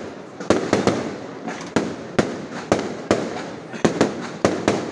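Fireworks display: a rapid, irregular string of about a dozen sharp aerial shell bursts, two to three a second, each bang trailing off in an echo.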